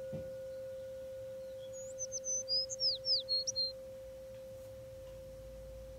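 A singing bowl ringing with one steady tone that slowly fades, a fainter higher overtone dying away first. A bird sings one quick phrase of high chirps and down-slurred whistles about two seconds in.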